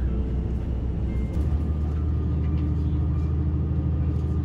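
Diesel railcar engine running under the train, a steady low rumble that grows a little louder about a second and a half in as the train pulls out of the station.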